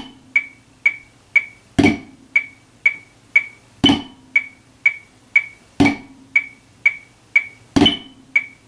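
A metronome clicking steadily, a few clicks a second, with a drumstick flam struck on a practice pad every two seconds, half notes at 60 beats a minute.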